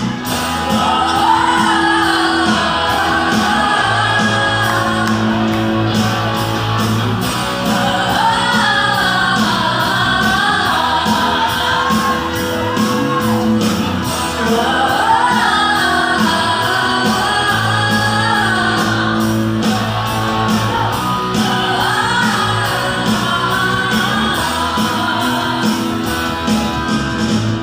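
Live pop-rock band playing loudly in a hall: women belting the melody in long rising and falling phrases into microphones over electric guitar, bass guitar, keyboard and a steady drum beat.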